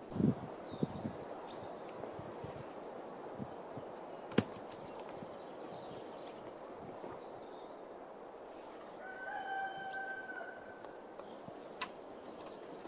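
A small bird singing three runs of rapid, high, repeated notes, over outdoor background noise, with a few sharp knocks, the loudest about four seconds in.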